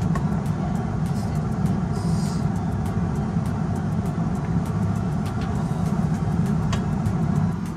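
A steady low rumble, like a motor or fan running, with faint light clicks and taps on top as spaghetti is tipped from a silicone colander into a steel pot.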